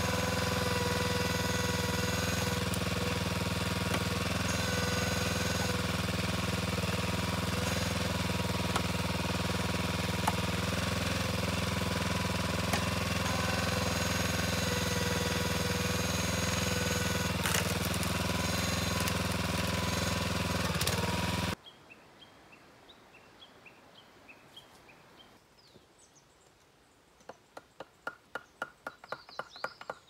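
Small gas engine of a hydraulic log splitter running steadily as logs are split, with a couple of sharp cracks. It cuts off suddenly about two-thirds of the way through, leaving a quiet stretch with faint short chirps and then a quickening series of clicks near the end.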